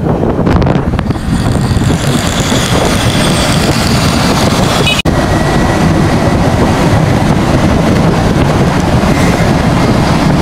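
Steady wind rush and road noise on a motorcycle riding through traffic, buffeting the microphone. The sound cuts out for an instant about halfway through.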